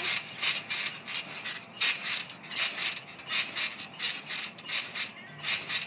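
Trampoline springs and frame creaking and clicking in a quick repeated rhythm as someone bounces on it.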